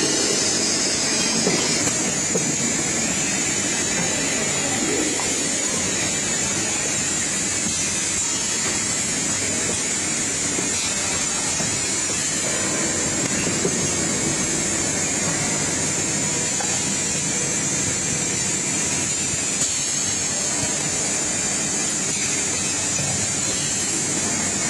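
Automatic printing machine for cylindrical bottles running, a steady, even mechanical noise.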